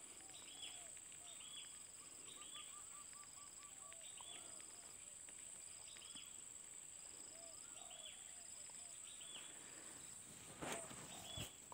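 Faint rural ambience: a steady high-pitched insect drone with repeated short bird calls, and a quick run of bird notes a couple of seconds in.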